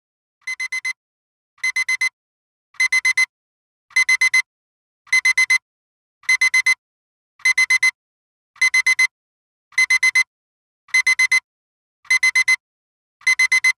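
Electronic timer alarm beeping in quick bursts of four high beeps, a burst about every 1.2 seconds, growing louder over the first few bursts and then holding steady: the countdown has run out.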